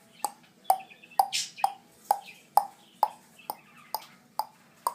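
Rhythmic tongue clicks, evenly spaced at about two a second, each a short hollow pop.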